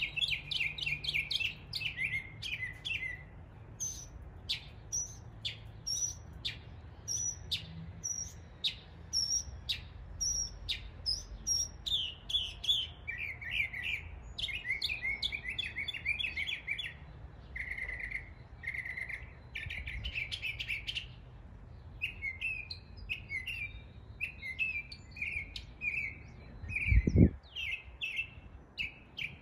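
Northern mockingbird singing a long, varied medley of mimicked calls of other local birds, each phrase repeated several times before switching to the next: sharp high chips, rapid trills and repeated whistled notes. A single short thump near the end.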